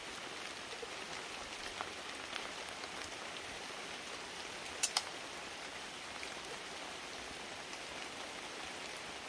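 Light rain falling steadily, an even hiss with scattered faint drop ticks. Two sharp clicks close together about five seconds in.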